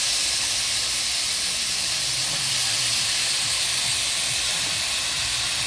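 Cubed pumpkin frying in hot oil in a stainless steel skillet, giving a steady sizzle.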